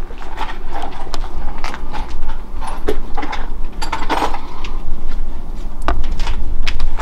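Irregular clicks and knocks, scattered all through, over a steady low rumble.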